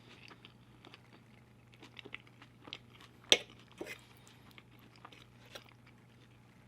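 Close-miked chewing of a mouthful of food: soft, scattered wet mouth clicks and crunches, with one sharper click about a third of the way through, over a faint steady electrical hum.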